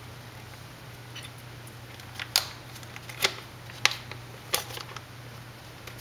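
Four or five short, sharp clicks at uneven intervals over a steady low hum.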